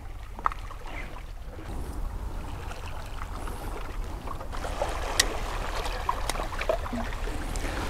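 Wind rumbling on the microphone at the seashore, with a few small sharp clicks from handling the fishing reel and metal jig lure.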